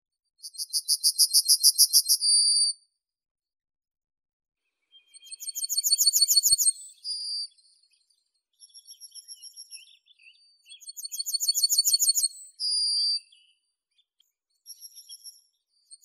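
Yellowhammer (Emberiza citrinella) singing: three songs, each a fast run of repeated high notes ending in a drawn-out final note. Fainter, shorter runs of bird notes sound between the songs.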